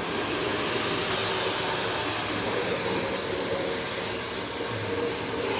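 Shark Navigator Professional NV60 upright vacuum cleaner running steadily, a continuous rush of motor and suction air.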